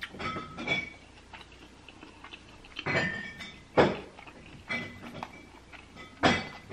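Close-miked chewing of a crispy, cheese-crusted birria quesadilla: irregular wet mouth clicks and crunches, the loudest about four seconds in and near the end.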